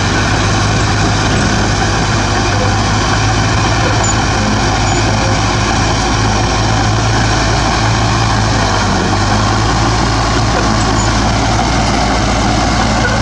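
Heavy earthmoving machine's diesel engine running steadily under load, with an even low drone and no pauses.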